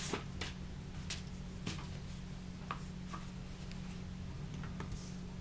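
A few faint, scattered taps and rustles as a stack of cut fabric, cotton batting and insulating lining is moved aside on a cutting mat beside a paper pattern, over a steady low hum.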